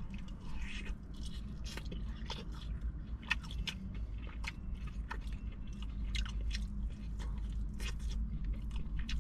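Close-miked chewing of crispy, sauced fried chicken: irregular wet crunches and crackles, several a second.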